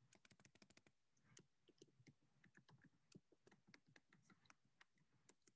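Faint typing on a computer keyboard: irregular key clicks, several a second, as a login is typed in.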